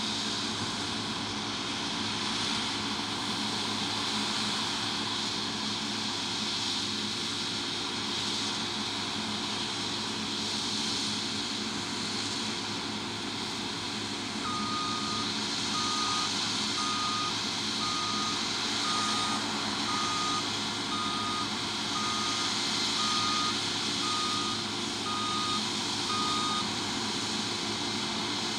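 Heavy harvest machinery running steadily, its engine a constant hum under a high hiss. From about halfway a reversing alarm beeps evenly, a little under once a second, for about twelve seconds.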